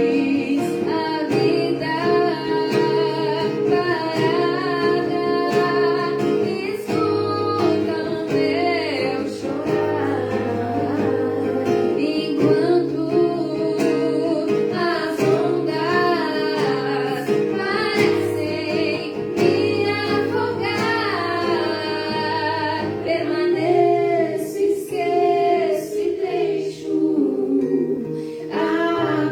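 A woman singing a song over sustained instrumental backing.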